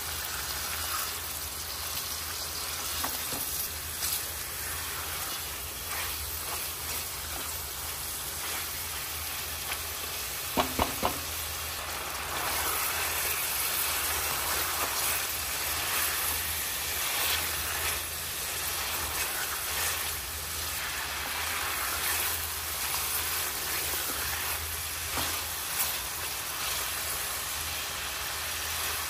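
Beef pieces frying in oil and spices in a metal pot, sizzling steadily as a silicone spatula stirs them. About ten seconds in come three quick, sharp knocks.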